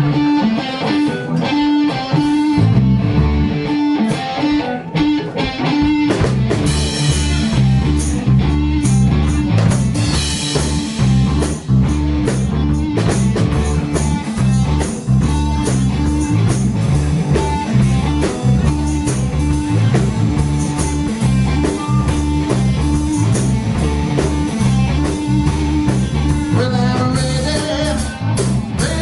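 A live blues band playing a steady groove on electric guitar, bass and drum kit, with no vocals.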